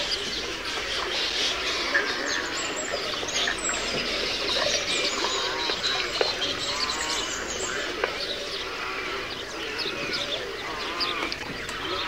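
A dense chorus of many birds calling at once: overlapping chirps, squawks and chattering calls with no pauses.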